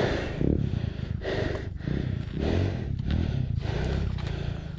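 Dirt bike engine running low and unsteady under a rider's hard, rapid breathing, about two breaths a second.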